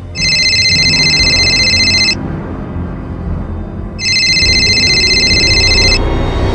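Telephone ringing: two high-pitched trilling rings, each about two seconds long with a two-second gap between them, over low, ominous background music.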